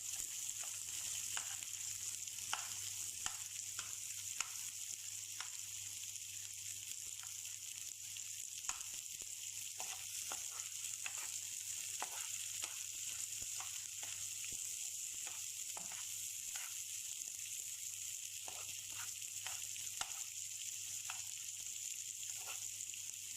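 Garlic and onion sizzling in hot oil in a frying pan, a steady high hiss, with frequent short clicks and scrapes of a utensil stirring them.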